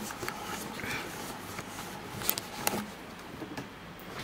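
Handling noise: a few light clicks and knocks over low room noise, the loudest a little over two seconds in, followed by another shortly after.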